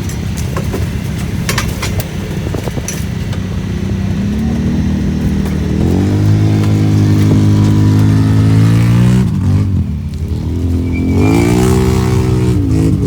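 Off-road vehicle engine running under load, its pitch climbing about five seconds in and holding, dropping off briefly near ten seconds and then climbing again. A few sharp knocks come in the first few seconds.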